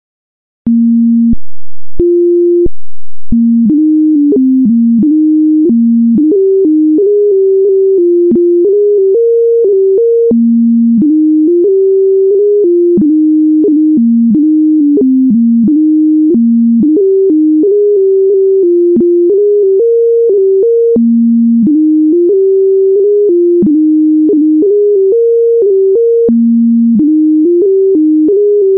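Computer score playback of a 2/4 bagpipe march in a single plain electronic tone with no drones, starting about a second in: a stepping melody at a steady march tempo, with short clicks at many of the note changes where the grace notes fall.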